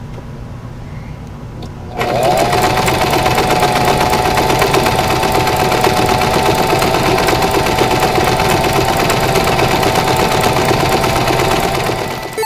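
Singer electric sewing machine starting up about two seconds in, quickly coming up to speed and then running steadily while stitching a seam through dark fabric: a steady motor hum over the fast, even chatter of the needle. It eases off near the end.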